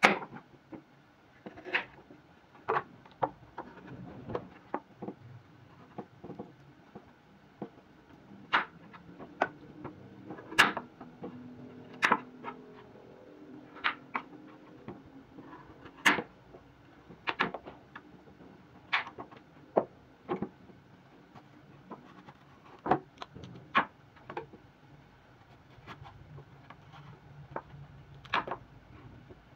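Kitchen knife cutting raw arrowroot into chunks on a wooden chopping board: sharp knocks of the blade hitting the board, irregular, about one a second.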